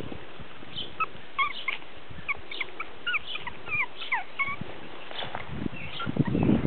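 Peke-a-tese puppy whimpering: a string of short, high squeaks that slide in pitch over a few seconds. Near the end, a rustling noise comes in.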